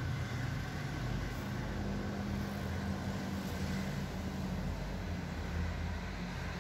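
A steady low mechanical hum with an even background noise over it, running unchanged throughout.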